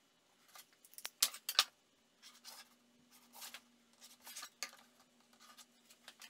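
Pencil scratching layout lines onto MDF board along a ruler and square, in a series of short scratchy strokes, with small handling knocks from the measuring tools; the sharpest strokes come a little over a second in.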